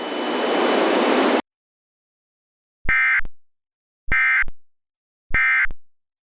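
A hiss of static that cuts off sharply about a second and a half in, then three short, identical bursts of warbling data tone about a second apart: the Emergency Alert System SAME end-of-message (EOM) bursts that close the alert.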